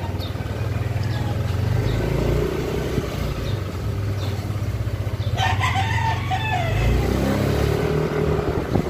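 Yamaha NMAX scooter's single-cylinder engine running steadily at low speed, and a rooster crowing once a little past five seconds in, lasting about a second and a half.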